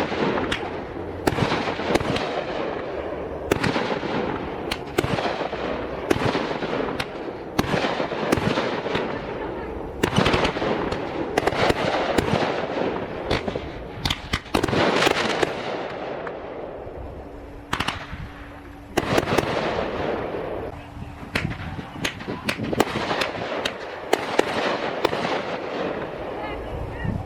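Fireworks display: a rapid, continuous run of aerial shell bursts, sharp bangs one after another with crackle and hiss between them, easing briefly a little past the middle.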